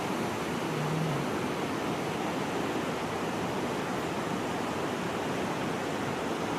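Mountain river rushing, a steady, even sound of fast-flowing water.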